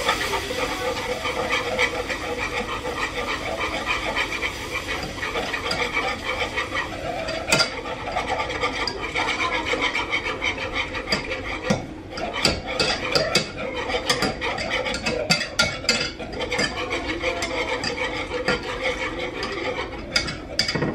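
Wire whisk stirring and scraping around a metal saucepan, whisking broth into a flour-and-oil roux for enchilada sauce. Steady scratchy scraping, with sharper clicks of the wires against the pan through the second half.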